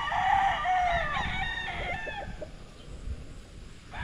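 Gamefowl roosters crowing. Crows overlap through the first two seconds, and another crow starts just before the end.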